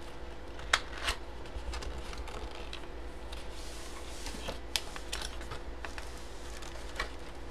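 Hands opening a cardboard box: light rustling and scraping of cardboard, with a few sharp taps and clicks as the lid is worked open.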